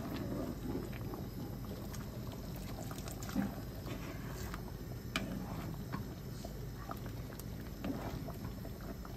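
Thick jjajang (black bean) sauce bubbling in a frying pan while it is stirred with a wooden spatula and thickened with starch. A steady simmering hiss with small scattered pops and clicks.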